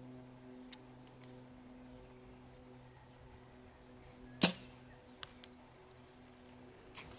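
Compound bow shot: one sharp, loud snap of the string and limbs on release a little after halfway, followed by two faint clicks about a second later.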